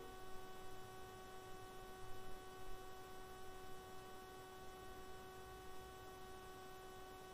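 Faint, steady electrical hum with a thin whine of evenly spaced overtones, and a couple of faint soft bumps about two seconds in.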